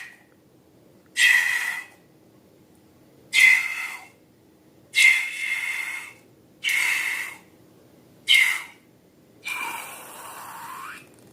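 Short squeaky, hissing squeals from a balloon neck as its contents are squeezed out, about six of them a second or two apart; the last one, near the end, is longer and fainter.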